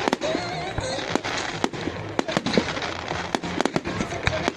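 Public fireworks display: an uneven, rapid string of sharp bangs and crackling reports, several a second, over the murmur of crowd voices.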